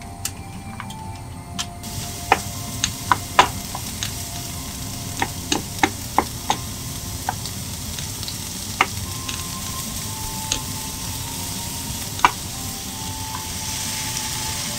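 Sliced onions sizzling in hot oil in a nonstick frying pan, with a wooden spatula tapping and scraping against the pan in a dozen or so sharp knocks as they are stirred. The sizzle gets louder near the end, when potato strips are in the pan with the onions.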